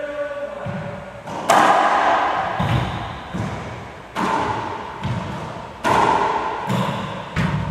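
Racquetball rally: the hollow rubber ball is struck by racquets and rebounds off the walls and floor of the court, in a string of sharp smacks about a second or so apart, each ringing on in the court's hard echo.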